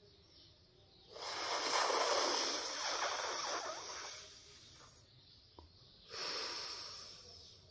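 Sheetali pranayama breathing: a long, airy breath drawn in through the rolled tongue, starting about a second in and lasting about four seconds, then a shorter breath let out through the nose near the end.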